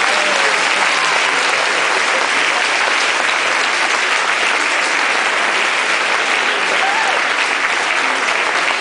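A large audience applauding, with steady dense clapping throughout.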